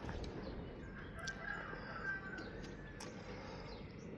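A faint bird call, a wavering tone lasting about a second and a half, over low background noise.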